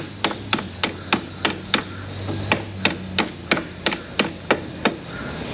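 Light, evenly spaced hammer taps, about three a second, seating a new battery terminal onto the battery post; the tapping stops near the end.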